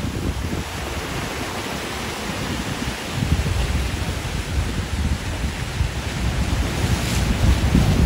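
Ocean surf washing and churning against a rock and concrete breakwater, with wind buffeting the microphone; the low wind rumble gusts harder from about three seconds in.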